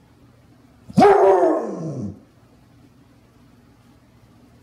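Clumber Spaniel giving one drawn-out bark that falls in pitch, starting about a second in and lasting about a second.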